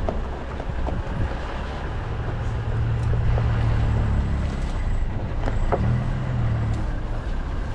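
Safari vehicle's engine running, a steady low drone that grows stronger for a few seconds midway.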